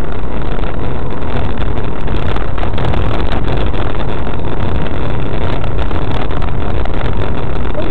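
Steady, loud drone of a car's engine and road noise inside the cabin, picked up by a dashcam's built-in microphone while driving.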